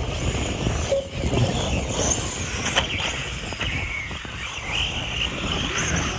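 Radio-control off-road buggies running on a dirt track, their small motors revving up and down in pitch, with a few sharp knocks.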